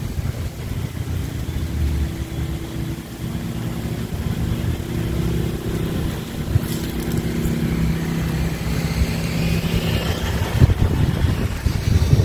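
An engine running steadily at a constant speed, with a brief knock near the end.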